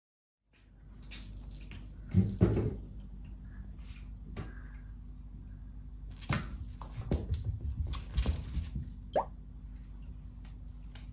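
A puppy playing on a towel over a wooden floor: scattered wet chewing and mouthing noises, knocks and clicks, the loudest knocks about two seconds in, over a steady low hum. A short rising squeak comes just after nine seconds in.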